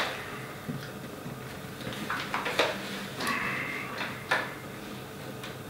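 Light clicks and knocks of a hot sauce squeeze bottle and a metal teaspoon being handled on a table as thick sauce is squeezed onto the spoon. There are a few sharp clicks and a brief scraping sound about three seconds in.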